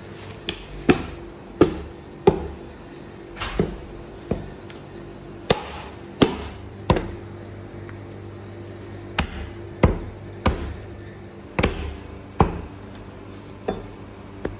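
A heavy meat cleaver chopping through a lamb carcass on a thick wooden chopping block. There are about seventeen sharp chops in runs, with a pause of about two seconds midway.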